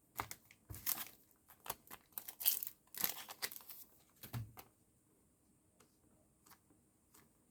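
Plastic blister packaging crinkling and tearing as a Pokémon TCG promo card is freed from it, in a run of short rustles and clicks over the first four and a half seconds, then near quiet.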